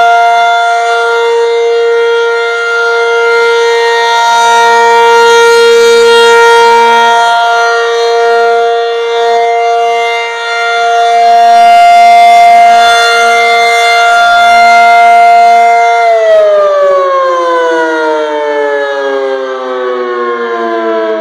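Federal Signal 500-DH-TT outdoor warning siren sounding a steady alert signal: a held chord of several tones that slowly swells and fades. About 16 seconds in, the pitch begins falling steadily as the siren winds down at the end of the one-minute signal.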